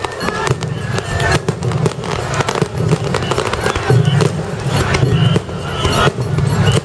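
Aerial fireworks shells bursting one after another, with many sharp bangs and a continuous crackle of sparks.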